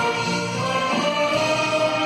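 Church orchestra playing a hymn, its instruments holding long, steady chords.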